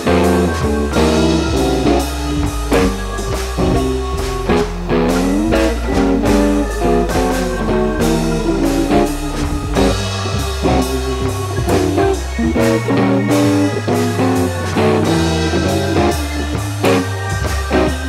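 Instrumental background music: plucked guitar over a bass line with a steady drum beat, in a blues-rock style.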